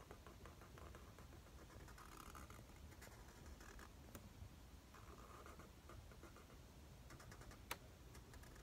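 Faint scratching of a felt-tip marker drawing strokes on paper, with one sharp click near the end.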